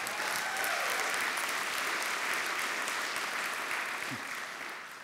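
Congregation applauding steadily, then dying away near the end.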